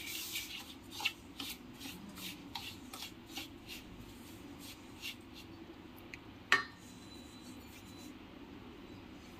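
Metal spoon stirring and scraping a dry semolina and flour mix in a stainless steel bowl: soft, rhythmic scraping strokes, about two to three a second, dying away after about five seconds. A single sharp click comes about six and a half seconds in.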